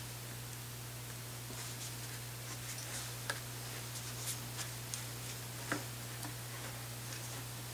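Scattered light clicks and ticks, a few sharper ones about three and six seconds in, over a steady low hum.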